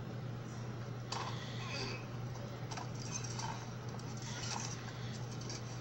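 Irregular creaks, clicks and crackles from about a second in, over a steady low hum, from a film soundtrack played on a TV and heard through its speaker.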